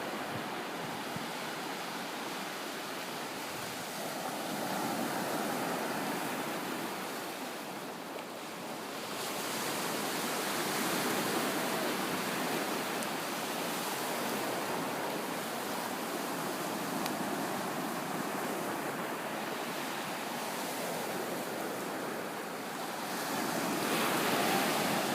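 Ocean surf: waves breaking and washing up the beach as a steady rush that swells louder several times, most of all near the end.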